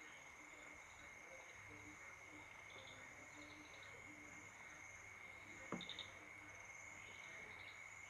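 Crickets and other night insects chirping faintly and steadily. One short knock comes about two-thirds of the way through.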